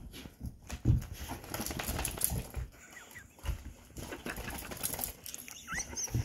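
A dog romping with a toy on a rug: paws scrabbling, thumps as she pounces and flings the toy, and a couple of brief high squeaks.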